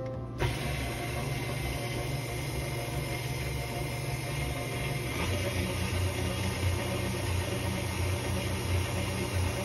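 KitchenAid stand mixer motor running steadily as the flat beater churns flour into a creamed butter-and-sugar base. About halfway through, a heavier, uneven low churning comes in.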